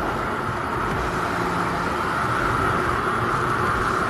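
Motorcycle cruising at steady speed: an even rush of wind and road noise over the running engine, with no change in speed.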